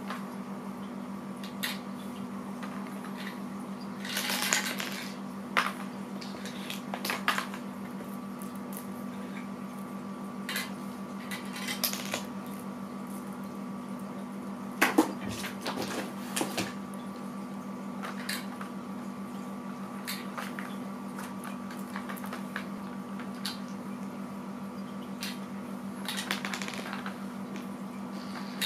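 Small game pieces being handled and set down: scattered light clicks and taps with a few brief rustles, the sharpest knock about halfway, over a steady low hum.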